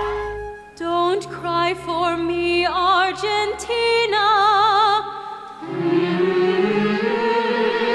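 A woman singing a solo musical-theatre line over a steady low accompaniment, her voice wavering with vibrato on held notes. About five seconds in it cuts to a different passage with fuller orchestral music.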